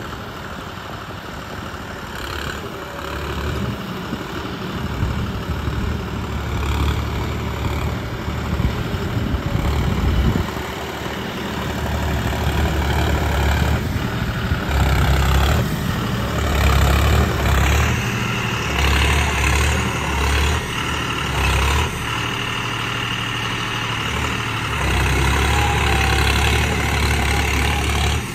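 John Deere 5210 tractor's diesel engine running as the tractor drives through shallow floodwater.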